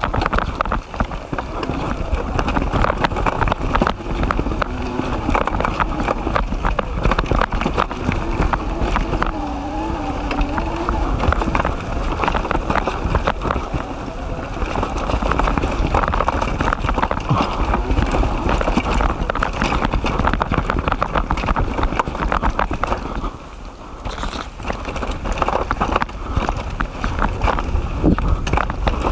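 Kona Stinky full-suspension mountain bike clattering and rattling over roots and dirt on a fast descent, with tyre noise and wind buffeting the camera microphone.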